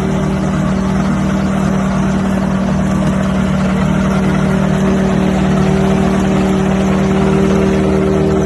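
An engine running steadily at an even speed, with a low, unchanging hum.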